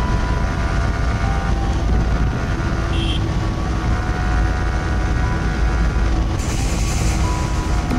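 Yamaha R15's 155 cc single-cylinder engine running at a steady cruise in sixth gear, under a loud low wind rumble on a handlebar-mounted camera. A brief rush of hiss comes about six and a half seconds in.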